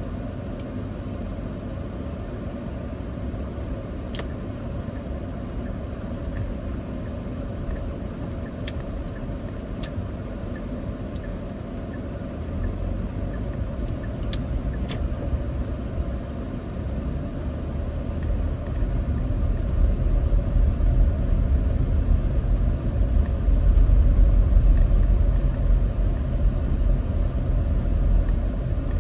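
Car driving slowly, heard from inside the cabin: a steady low rumble of engine and tyres that grows louder about halfway through as the car picks up speed. A few faint clicks sound now and then.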